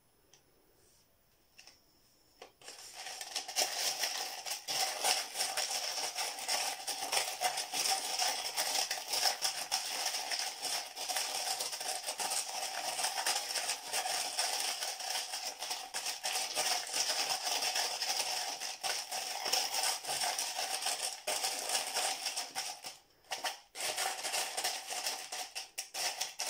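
Crushed fire glass being stirred in a cup with a wooden craft stick: a dense, continuous rattling and scraping of glass pieces. It starts about three seconds in and breaks up into short bursts near the end.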